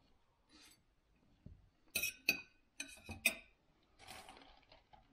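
Metal fork clinking against a dinner plate in a few short taps, two about two seconds in and three more about a second later, followed by a soft rustle.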